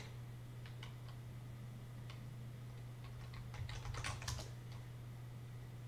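Computer keyboard keys clicking as a search word is typed: a few scattered keystrokes, then a quick run of them about four seconds in, over a steady low hum.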